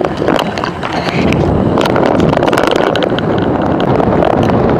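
Wind rushing over the microphone with rolling tyre noise from a moving e-bike, with scattered small clicks and rattles.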